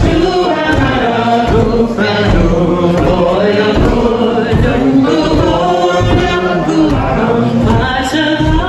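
A group of voices chanting a Gaelic milling song in unison, over a steady beat of low thumps from the wet wool cloth being pounded on the milling table.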